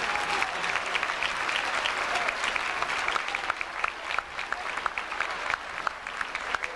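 Audience applauding: many people clapping together, dense at first and thinning to more scattered claps about halfway through.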